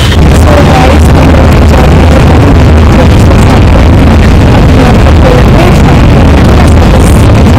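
Inside a moving bus: the engine's steady low rumble mixed with road and wind noise coming in through the open window.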